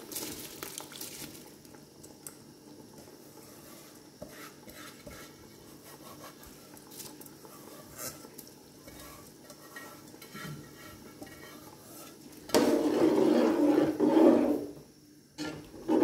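Rice tipped into a pot of boiling chicken stock, then a faint steady bubbling. Near the end, for about two seconds, a metal ladle stirs and scrapes loudly around the aluminium pot, followed by a brief knock of the ladle against it.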